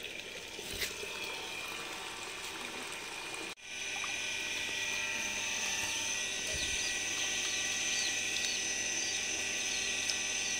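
A small motor running with a steady whine and hiss. It cuts out for an instant about three and a half seconds in and comes back louder.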